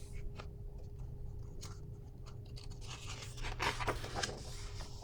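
Paper rustling as a picture-book page is turned, strongest between about three and four and a half seconds in, with a few small ticks before it. A faint steady hum runs underneath.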